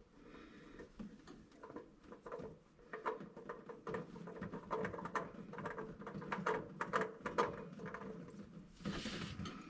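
Old oil filter being spun off by hand under the car: irregular small clicks and patter of metal and handling, with a short rush of noise near the end.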